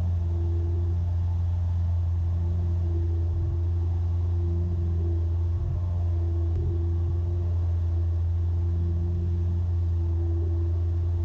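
Steady cabin drone of a Piper Cherokee Six's six-cylinder piston engine and propeller in flight: a deep, even hum with a fainter steady higher tone over it.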